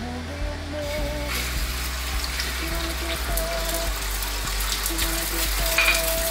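Beaten egg sizzling in a small rectangular omelette pan as a rolled omelette is turned with a spatula; the crackling hiss comes in about a second in, over soft background music.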